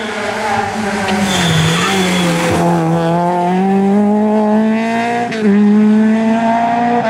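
Rally car engine at high revs, its pitch climbing steadily. About five seconds in, the pitch dips briefly and the engine gets louder.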